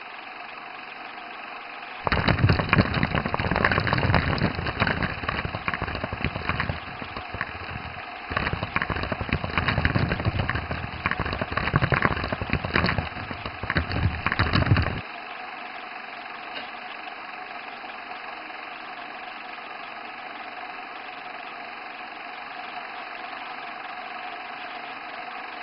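Old film projector sound effect: a steady mechanical whirr, with a much louder clattering rattle from about two seconds in until about fifteen seconds, broken by a short dip near eight seconds.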